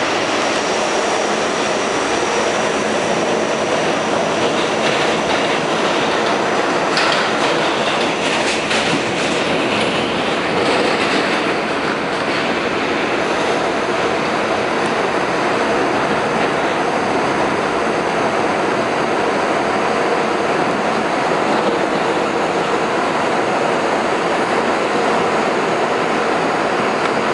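Westinghouse R68 subway car running, heard from inside the car: a steady, loud rumble of wheels on rail, with a run of sharp clicks about seven to eleven seconds in.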